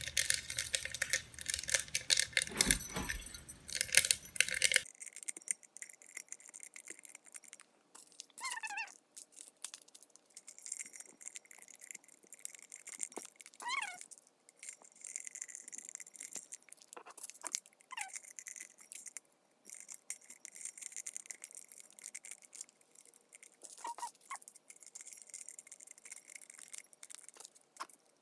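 Small packets of dry Orbeez beads being torn open and emptied into a glass vase: loud crinkling and tearing for the first few seconds, then quieter rustling and light clicks, with several short squeaks that fall in pitch.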